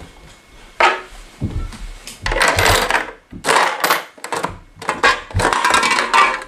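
A coin dropping into a Lego vending machine with a sharp knock, then the plastic bricks of its push-pull slider clattering and rattling in several bursts as it is worked back and forth, pushing out a soda can near the end.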